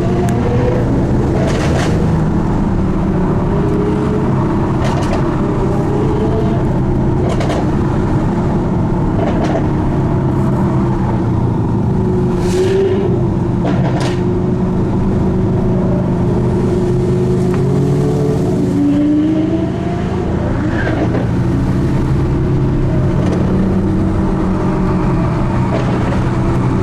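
Cars driving at speed on a road. The engine note keeps rising and falling over steady road and wind noise, with a handful of short sharp cracks.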